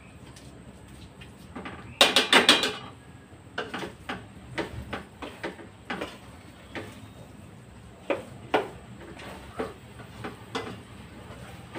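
Metal spoon scraping and knocking against the inside of a stainless steel pot as thick sticky rice is stirred, in irregular clicks and scrapes. About two seconds in there is a louder run of several quick sharp clanks.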